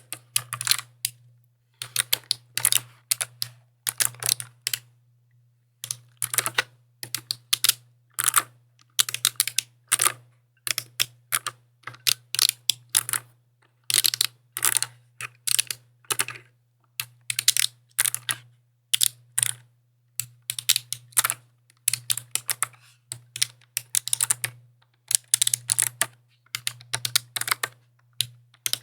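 Typing on a mechanical keyboard: quick runs of sharp key clicks in bunches, separated by short pauses, with a faint steady low hum underneath.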